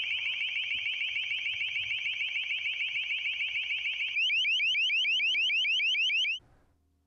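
Long Range Acoustic Device (LRAD) sounding its alarm-like deterrent tone: a fast-repeating rising chirp, several a second. About four seconds in it changes to a slower, louder sweeping warble, then stops about six seconds in.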